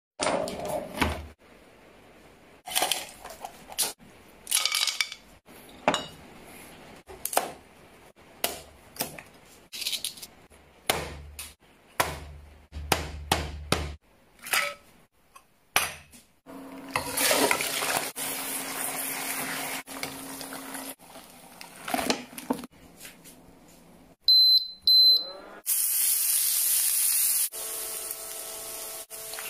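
Kitchen cooking sounds in quick succession: dishes and utensils clinking and knocking, then food sizzling on a hot electric grill. A few short high beeps come just before the sizzling grows loud near the end.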